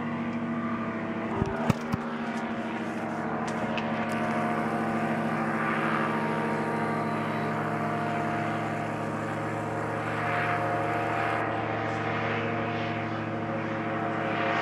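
Powered paraglider (paramotor) engine and propeller droning steadily overhead, swelling slightly now and then. A few sharp clicks sound about a second and a half in.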